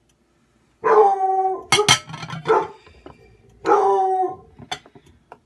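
A dog giving long, howling barks: two drawn-out calls a little under three seconds apart, with a short bark between them. A few sharp clicks fall between the first two calls.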